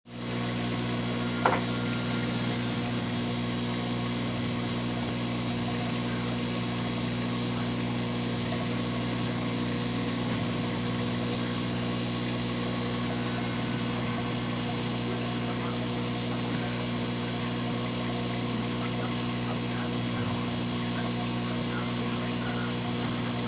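Aquarium pump humming steadily, a low electrical drone with a light hiss above it. A single sharp click about one and a half seconds in.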